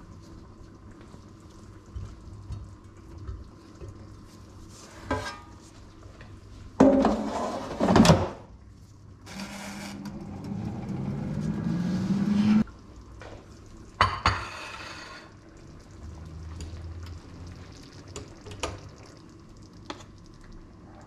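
Kitchen handling sounds. There is a loud clatter of cookware about seven seconds in, then a few seconds of a vessel filling with liquid, its pitch rising steadily until it cuts off suddenly, and another clatter about fourteen seconds in.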